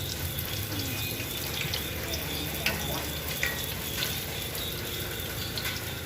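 Food deep-frying in a basin of hot oil: a steady sizzle with scattered small pops and crackles.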